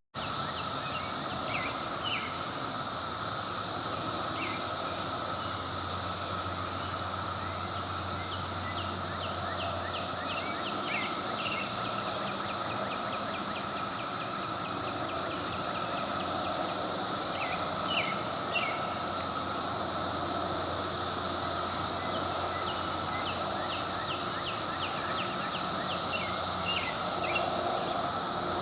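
Steady, unbroken chorus of Brood X periodical cicadas, a continuous droning hum with a high hiss above it. Brief faint high chirps come and go.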